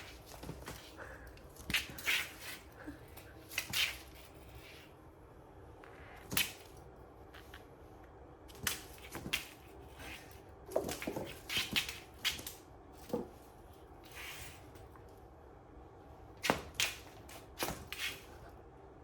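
Cats playing with a ribbon toy: scattered rustles, light taps and swishes at irregular intervals, with clusters around the middle and near the end.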